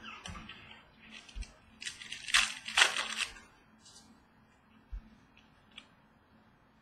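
Trading cards being handled, with a cluster of rustling and scraping from about two to three seconds in as cards slide against each other and their packaging. A few small clicks and taps come before and after.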